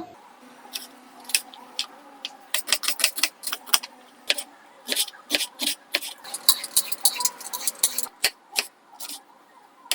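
Kitchen utensils and cookware being handled: many short, irregular clicks, taps and light clinks over a faint steady background.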